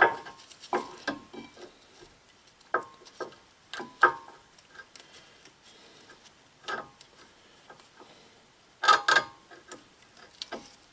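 Sharp metallic clicks and clinks of a brake pad being pushed into the caliper bracket's anti-rattle clips and slid back and forth, with a quick cluster of louder clicks about nine seconds in.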